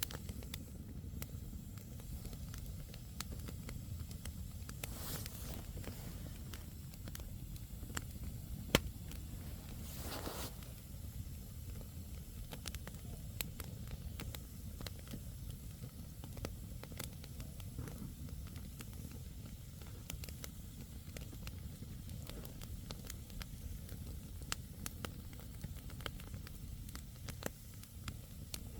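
Wood campfire crackling: irregular snaps and pops of burning logs over a steady low rumble, with a couple of brief hisses and one sharper pop about nine seconds in.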